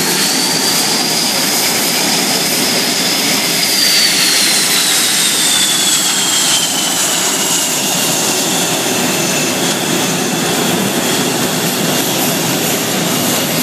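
Blue Angels F/A-18 Hornet jet engines running at the flight line, a loud steady rush with a high turbine whine that falls in pitch between about four and seven seconds in.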